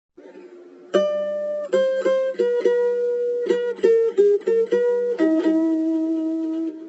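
A plucked string instrument playing a short melody of quick, separate notes that starts about a second in and ends on a held note.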